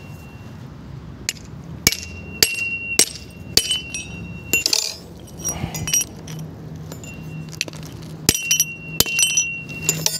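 Hammer blows flattening a curved strip of steel cut from a round pipe, struck against a steel rail. Each blow rings with a clear metallic tone. The strikes come irregularly, roughly one every half second, with a break in the middle while the piece is handled, then another quick run near the end.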